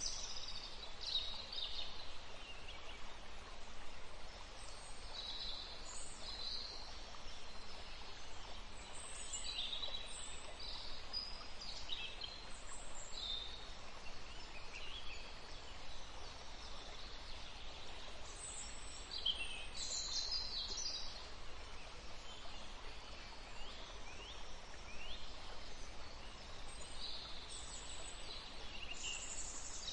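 Nature ambience: birds chirping and calling in short, irregular bursts of high chirps and quick falling sweeps over a steady background hiss.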